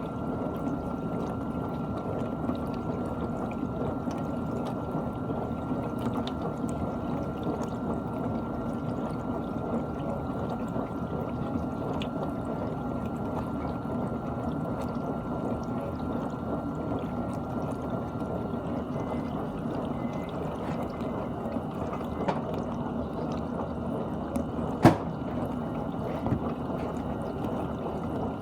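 GE dishwasher running, water rushing and sloshing inside the tub as a steady noise, with a faint steady high tone that stops about two-thirds of the way through. A single sharp click stands out a few seconds before the end.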